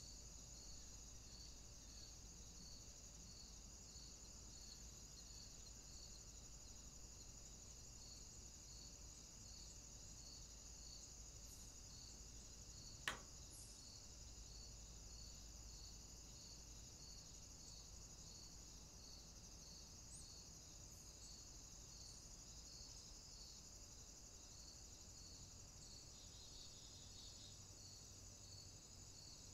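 Near silence: room tone with a faint steady high hiss and a soft chirp repeating about twice a second. A single sharp click about thirteen seconds in.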